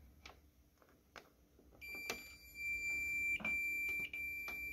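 Fluke 115 multimeter's continuity beeper sounding one steady high-pitched tone from about two seconds in, with the probes across a capacitor that has failed as a dead short. A few faint probe clicks come before it.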